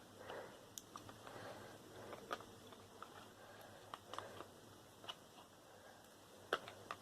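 Faint, scattered clicks and light metallic knocks of hand tools working at the casing of a transformer, prying at a part to get it off. The sharpest knocks come about two seconds in and near the end.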